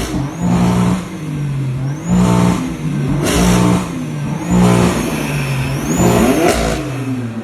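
2019 BMW M4's twin-turbo straight-six, fitted with upgraded hybrid turbochargers, revved several times in quick succession, its pitch climbing and falling each time. A faint high whistle rises with the revs.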